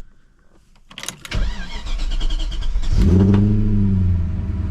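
BMW E34 540i's V8 being started: the starter cranks briefly about a second in and the engine catches. Near three seconds the engine flares up louder, its pitch sinking as it settles into a steady idle.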